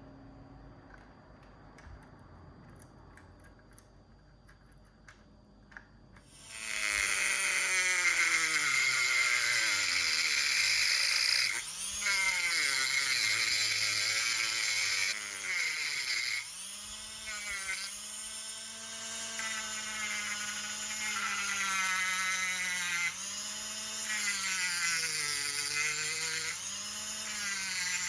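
A small electric motor whirring at high speed, its pitch rising and falling as the speed changes. It starts about six seconds in and drops out briefly several times, after a few faint clicks.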